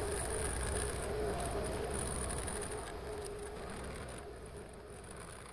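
Milling machine running with a steady hum while the flycutter is not cutting, growing fainter through the second half.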